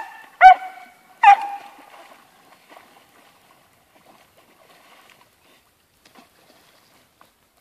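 A dog barking twice in sharp, high-pitched yelps, about half a second in and again just over a second in, the second one drawn out and falling in pitch. Faint splashing of water follows.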